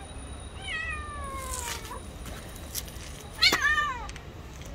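Two cats in a territorial standoff: one long yowl that slides down in pitch, then about three and a half seconds in a sudden sharp sound and a short, louder falling cry.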